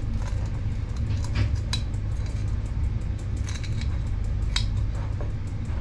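Calamansi being squeezed over a plate with a hand-held utensil: about six short, sharp clinks of the utensil against the plate, scattered irregularly, over a steady low hum.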